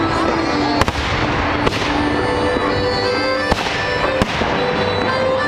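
Fireworks going off: four sharp bangs at uneven intervals, heard over music with long held notes.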